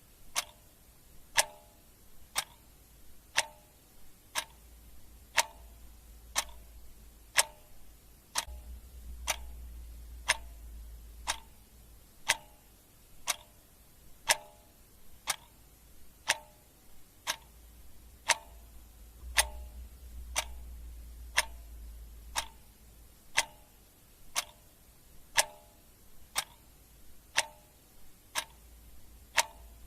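Clock ticking steadily, about one tick a second, over a faint low rumble.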